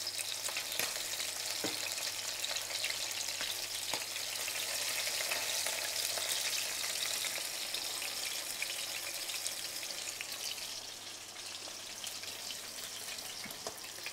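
Cornflour-coated garfish fillets shallow-frying in hot olive oil in a stainless steel frying pan: a steady sizzle with fine crackling as the coating crisps, and a few light taps. The sizzle eases a little in the last few seconds.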